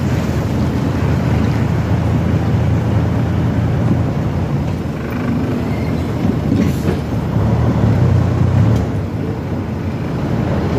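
Truck engine running as the truck drives slowly, with road and wind noise coming in through the open cab window. The low engine hum swells briefly about eight seconds in.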